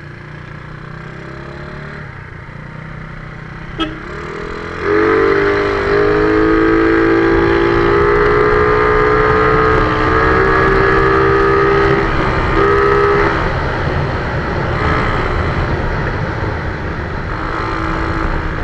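Tuned Yamaha scooter engine, fitted with a big-valve head and racing cam, opened to full throttle: about five seconds in it jumps to a high, steady, slightly rising pitch as the variator holds the revs while speed builds, then eases off a few seconds later. Wind rushes over the microphone throughout.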